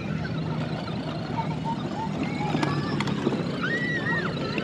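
Electric motor of a battery-powered ride-on toy motorcycle humming steadily as it drives along, with a couple of sharp clicks about halfway through.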